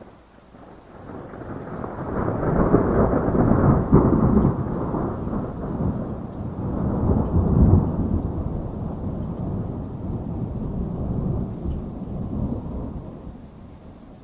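A long, rolling peal of thunder that swells over the first couple of seconds, rumbles at its loudest through the middle, and slowly dies away near the end, over steady rain.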